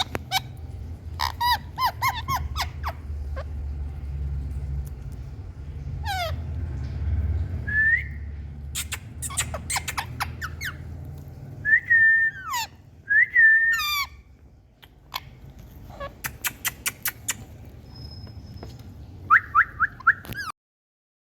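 Indian ringneck parrot calling: sharp squawks, quick runs of chirps and gliding whistles, with a low rumble underneath for most of it. The sound stops abruptly near the end.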